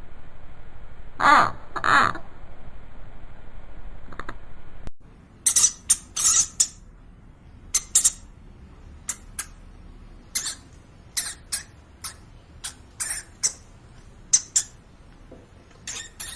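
Animal calls: two harsh, caw-like calls about a second and a half and two seconds in, then, after an abrupt change about five seconds in, a string of short high chirps at irregular intervals.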